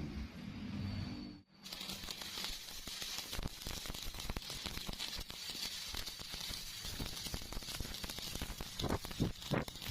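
Welding arc crackling steadily on steel, starting after a brief cut about a second and a half in, with a few stronger knocks near the end.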